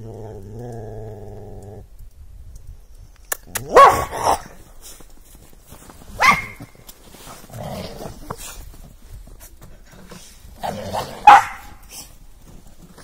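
Dogs fighting over food: a low, steady growl for the first two seconds, then three loud, sharp vocal outbursts a few seconds apart, the loudest near the end.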